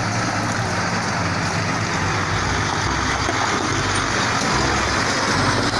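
Diesel engine of a UD Trucks fuel tanker truck running, close by, with a steady low rumble under a loud even noise.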